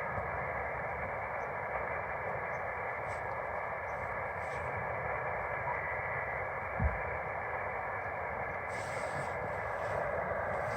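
Steady, thin hiss of band noise from an HF amateur radio receiver's speaker, tuned to a quiet frequency with no station coming through. A single low thump about seven seconds in.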